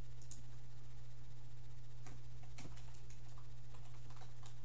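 Scattered light clicks, most of them from about two seconds in, over a steady low hum.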